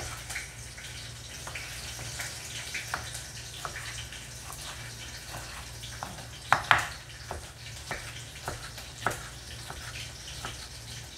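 Kitchen knife cutting a tomato on a wooden chopping board: irregular light knocks as the blade comes down through the soft flesh onto the board, the loudest pair a little past the middle. A steady low hum runs underneath.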